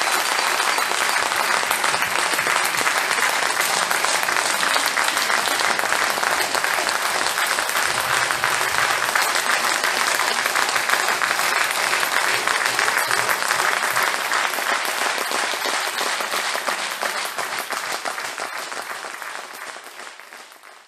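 Audience applauding steadily with dense, continuous clapping, fading out over the last few seconds.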